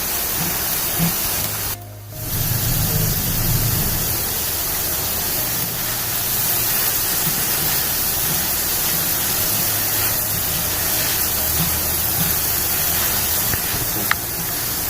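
Soaked chana dal deep-frying in hot oil, a steady dense sizzle of water boiling out of the lentils; the oil is still foaming, a sign the dal is not yet done. The sizzle cuts out briefly about two seconds in.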